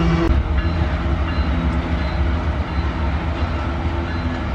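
Loaded iron ore wagons of a freight train rolling past on the track: a steady low rumble of wheels on rail. A steady low tone cuts off abruptly just after the start.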